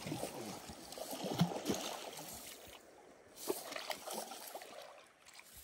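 Water splashing and trickling in an uneven wash, louder in the first few seconds and fading toward the end.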